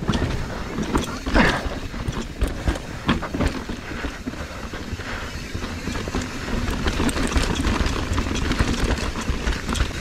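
Mountain bike descending rocky dirt singletrack: tyres rumbling over dirt and stones, with frequent clattering knocks and rattles from the bike over roots and rocks, as picked up by a camera mounted on the rider.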